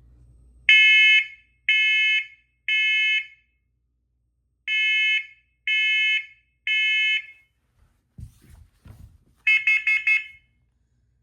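Smoke alarm sounding the temporal-three evacuation pattern: two groups of three loud, half-second beeps with a pause between groups. A couple of soft knocks follow, then a quick run of about five short beeps near the end.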